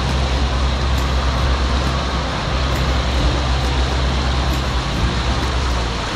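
Speedboat engine running steadily under way, a constant low drone with water rushing past the hull.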